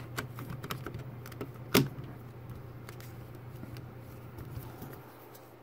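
Small plastic clicks and taps as a hand handles and presses on a PinePhone's snap-on plastic back cover, with one sharper click about two seconds in. A low steady hum runs underneath and stops about five seconds in.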